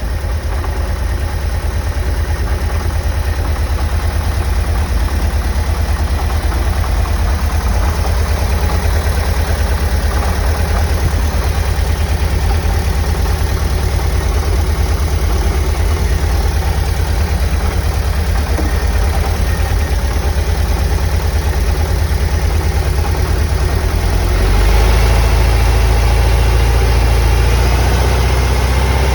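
1990 VW Vanagon's water-cooled flat-four engine running cold with a loud, rapid knock, which lessens once the engine has warmed for about ten minutes. About twenty-five seconds in, the engine picks up a little and runs louder.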